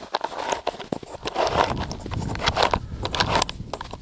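Handling noise close to a camera's microphone: irregular rustling and scraping with many small clicks and knocks as the camera is moved and set in place.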